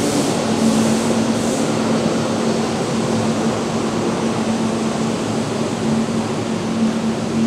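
Keihan 6000 series electric train running away on curved track: a steady rail and wheel noise with a constant hum, and a few brief high hisses in the first second or two.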